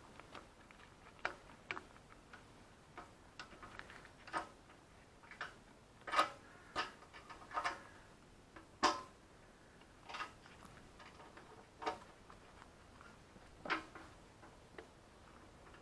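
Irregular light clicks and taps, about a dozen at uneven spacing, from gloved hands and a tool working at the rear mounting bolt of a motorcycle fuel tank; the loudest come about six and nine seconds in.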